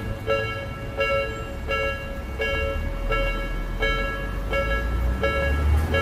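Japanese railway level-crossing warning bell ringing in a steady repeating pattern, about one and a half strokes a second, signalling that a train is due. A low rumble underneath grows louder near the end.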